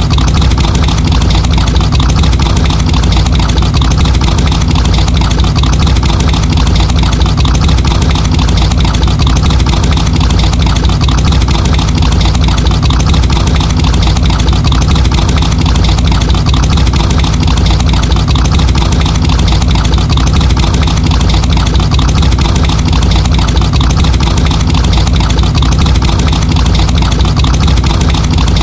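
Muscle car V8 engine idling steadily, a loud, even, deep rumble with no revving.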